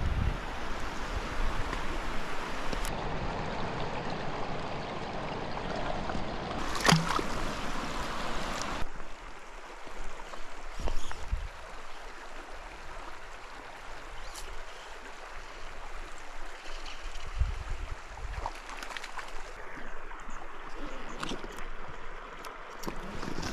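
Small creek water running and gurgling, louder for the first third and then quieter, with short splashes of a hand in the shallow water near the end.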